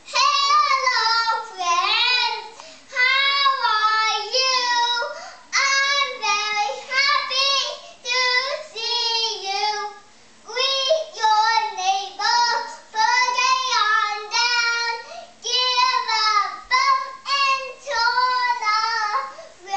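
A young boy singing a children's song unaccompanied in short phrases, with brief pauses between them.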